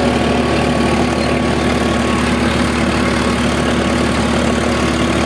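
Farmtrac 60 Powermaxx tractor's diesel engine running steadily at a set throttle, pulling an 18-disc harrow through soft field soil.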